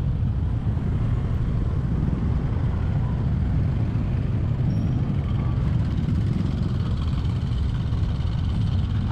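Steady low rumble of vehicle travel on the road, engine and road noise with no distinct events.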